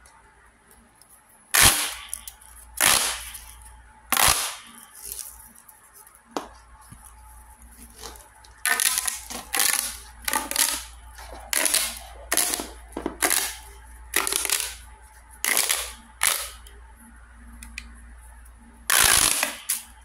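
Orange LED pop tube fidget toy, a ridged plastic tube, being pulled out and pushed back by hand. Each stretch or squash gives a short burst of rapid plastic clicking as the ridges pop open or snap shut, about a dozen bursts with pauses between them.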